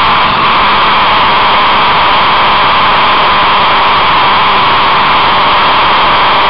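Loud, steady rush of wind noise over an onboard camera microphone at speed on track, with a faint engine drone underneath.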